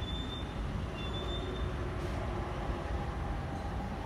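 Light-rail train running away along the track: a steady rumble with a faint whine.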